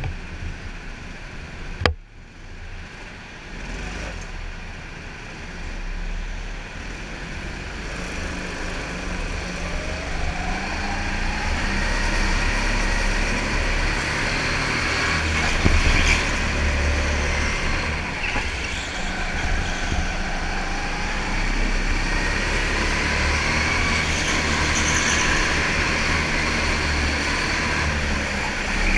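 Go-kart engine running, heard from onboard the kart: a sharp knock about two seconds in, then the engine rising in pitch as the kart pulls away and running steadily at speed around the track.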